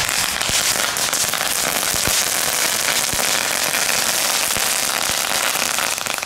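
Category 1 ground firework burning and crackling: a dense, rapid crackle with a few sharper pops, which dies away near the end.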